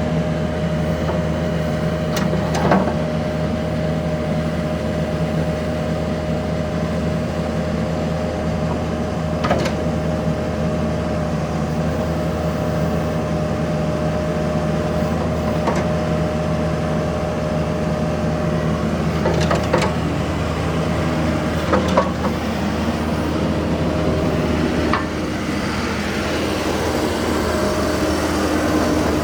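Diesel engine of a 2010 John Deere 310J loader backhoe running steadily, with a few sharp clanks over the top. The engine note changes slightly near the end.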